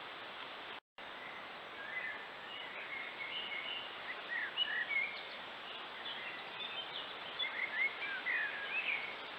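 Many short, high chirping calls in quick clusters over a steady background hiss, with a brief cut to silence just under a second in.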